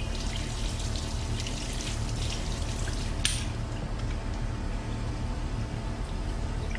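Water from a hose splashing over a bicycle's rear cassette and derailleur and onto a wet tiled floor, with one sharp knock about three seconds in.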